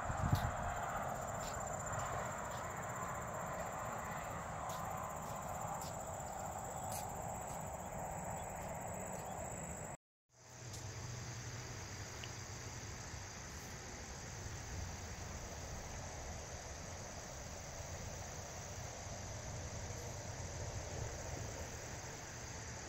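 Crickets and other insects chirring steadily in tall grass over a low, even hum. The sound cuts out completely for a moment about ten seconds in.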